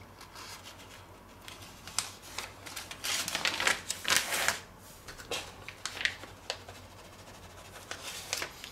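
Clear plastic vacuum-sealer bag crinkling and rustling in irregular bursts as it is held open and handled, busiest from about two to four and a half seconds in.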